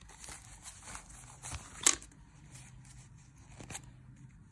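Paper banknotes being handled and stacked on a table: soft rustling and shuffling, with a sharp crisp snap about two seconds in and a smaller one near the end.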